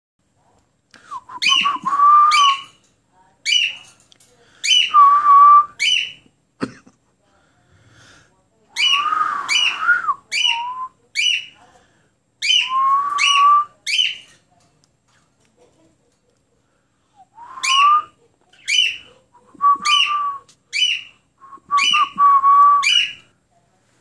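A person whistling to a pet cockatiel and the cockatiel whistling back: clusters of short, sharply rising whistled notes, some ending in a held tone, with short pauses between the clusters.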